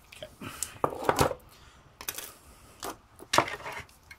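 Laptop battery pack being pulled apart by hand: a series of short clicks and knocks with rustling, as the cylindrical lithium-ion cells, plastic casing and small metal terminal pieces are handled and set down on a desk.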